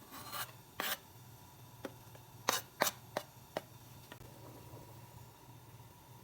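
A cooking utensil stirring garlic in melted butter in a pan, giving several short scrapes and knocks against the pan, bunched in the first few seconds, over a faint steady hum.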